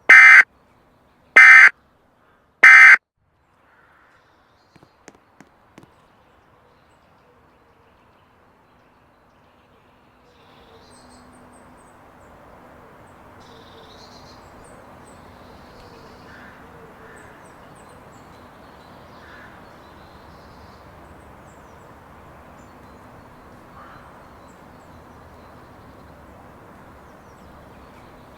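Emergency Alert System end-of-message signal: three short, loud bursts of SAME data tones about 1.4 seconds apart, marking the end of the flash flood warning. A few faint clicks follow, and about ten seconds in a faint background with scattered calls begins.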